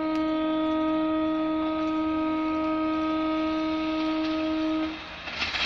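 Horn of an approaching WAP-4 electric locomotive, one long steady single-note blast lasting about five seconds, then cutting off. A brief rush of noise follows near the end.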